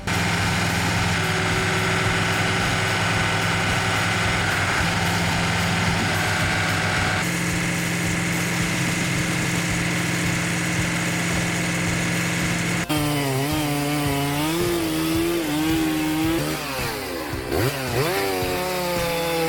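Chainsaw engine running at a steady high speed, shifting pitch slightly about seven seconds in. About thirteen seconds in, it begins revving up and down.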